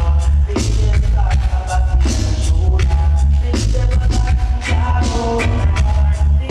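A recorded tune played loud through a sound system, with heavy booming bass, a steady drum beat and singing over it.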